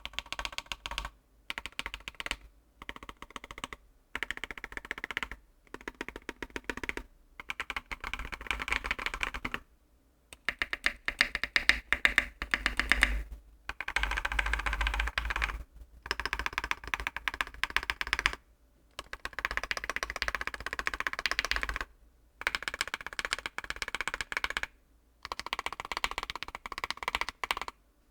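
Typing on a Monokei KFE CE custom mechanical keyboard with lubed, filmed Alpaca linear switches, a polycarbonate plate and PBT keycaps. The keystrokes come in fast runs of one to three seconds, broken by short pauses.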